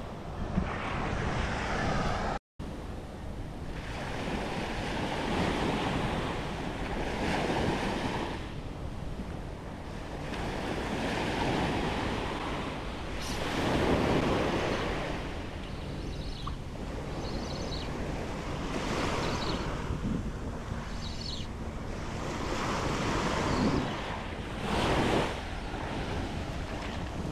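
Small waves breaking on a sandy beach and washing up the shore, swelling and fading every few seconds, with wind rumbling on the microphone.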